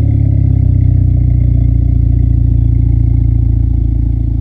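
Audi A4's turbocharged TFSI engine idling steadily shortly after a cold start, its hand-machined downpipe resealed. The idle eases down slightly after about three and a half seconds.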